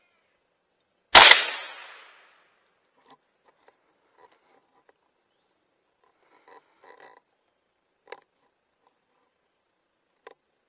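A single gunshot about a second in, its echo dying away over about a second, followed by a few faint clicks and rustles.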